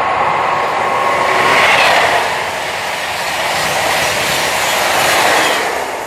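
KTX-Sancheon high-speed train passing close by at around 300 km/h: a loud rush of wheels on rail and air that swells twice, then eases off near the end.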